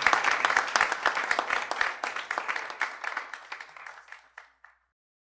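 Audience applauding, the clapping steadily dying away to a few last scattered claps before stopping.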